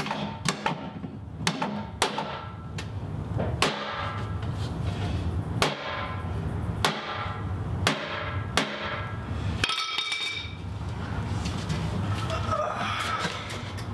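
Hammer driving nails through a wooden shield handle into the shield board: about a dozen sharp strikes at an uneven pace of roughly one a second, stopping about ten seconds in.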